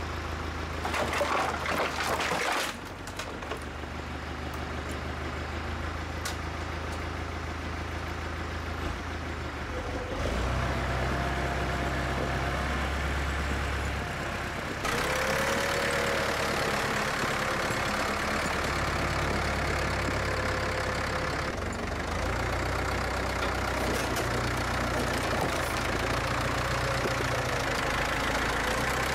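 Ford 5000 tractor engine running steadily as the front-loader grapple takes up a stack of old wooden boards, with wood clattering for the first couple of seconds. About ten seconds in the engine picks up, and a thin steady whine comes in and holds as the load is lifted and carried.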